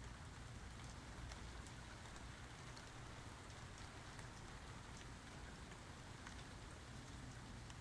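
Faint, steady rain falling, with scattered single drops ticking through it and a steady low rumble underneath.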